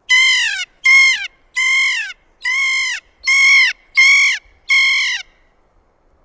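Kea calling: seven loud, drawn-out calls in a row, a little under a second apart, each ending in a downward slide in pitch.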